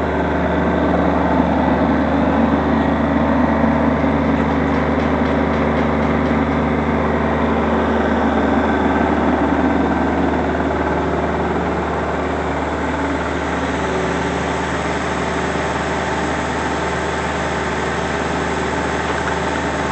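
An engine running steadily at idle, a little louder for the first half and then settling slightly quieter.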